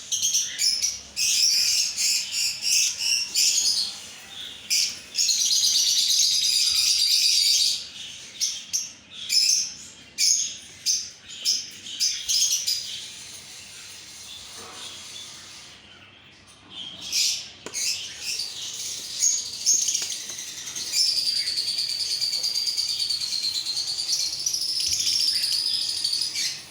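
Blue masked lovebird (blue personata) chattering in high, shrill chirps, in quick bursts with a lull around the middle, then a long unbroken run of chatter in the second half.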